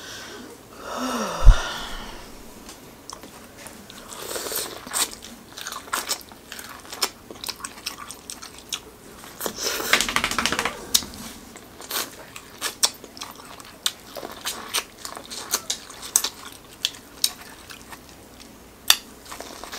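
Biting and chewing sauce-coated corn on the cob close to the microphone: crisp crunches of kernels coming off the cob and wet smacking. There is one loud low thump about a second and a half in.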